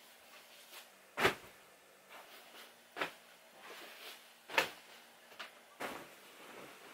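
Pillows tossed onto a mattress, landing with three soft thumps about a second and a half apart, then the flap and rustle of a duvet being shaken out over the bed near the end.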